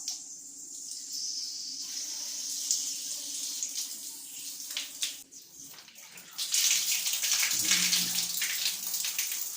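Water running and splashing out of an apartment shutoff valve opened up for repair as its core is removed, growing much stronger about six seconds in, with a few sharp clicks.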